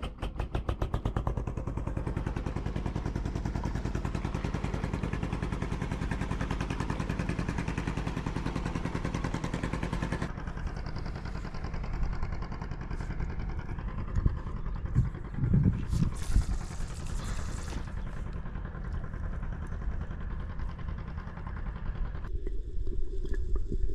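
Small 3 hp outboard motor on an inflatable boat starting and then running steadily with a fast, even putter.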